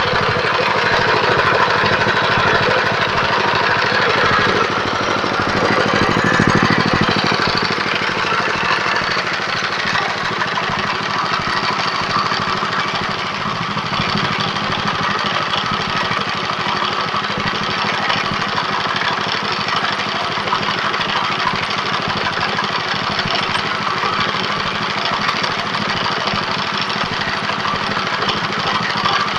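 Chicken-feed pellet machine running steadily under power, a continuous mechanical drone with a fast, even pulse. It is a little louder in the first several seconds.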